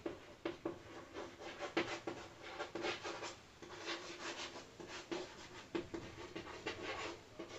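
Chalk writing on a chalkboard: a quiet run of short, irregular scratches and taps as letters are written out.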